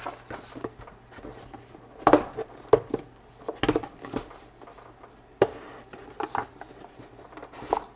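Cardboard box handled and opened by hand: scattered taps, scrapes and rustles of cardboard sliding and flaps folding, in a small room.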